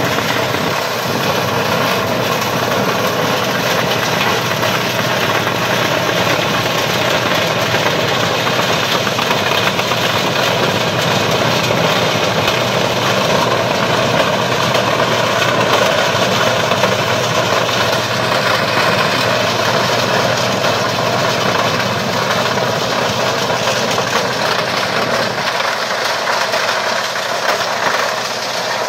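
FAE MTL tractor-mounted PTO rock grinder crushing river stones: a steady heavy tractor engine working under load, with dense crunching and grinding of rock in the rotor chamber. The low engine hum thins out near the end, leaving mostly the crushing.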